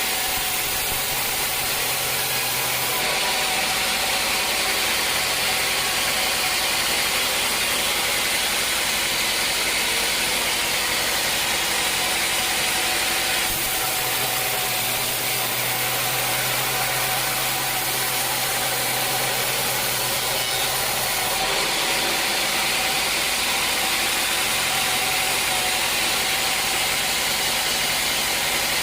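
Sawmill machinery running: a steady mechanical noise with a strong hiss and a constant hum. The sound changes abruptly three times, about 3, 13 and 21 seconds in.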